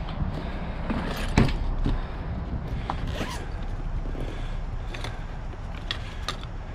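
Zipper of a soft-sided fabric suitcase being pulled open, with rustling and scattered knocks as the case is turned over and its contents are shifted. A sharp knock comes about a second and a half in.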